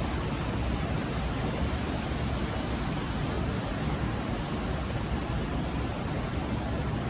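V/Line VLocity diesel railcar train running with a steady rumble and rushing noise.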